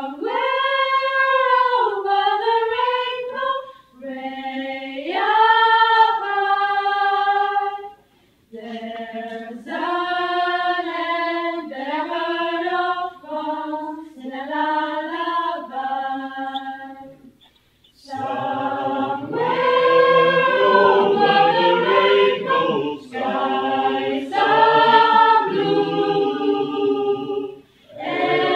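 Teenage mixed choir singing in phrases with short breaths between them. About eighteen seconds in, lower voices join and the sound grows fuller.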